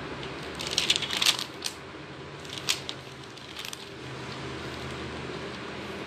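Clear plastic sheeting on the pages of a curtain-fabric sample book crinkling as a page is turned by hand: a cluster of crackles about a second in, then two single crackles about a second apart.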